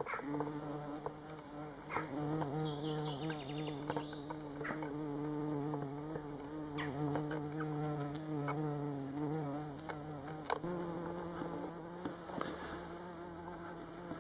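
A bumblebee buzzing steadily close by, its pitch stepping up slightly about ten and a half seconds in.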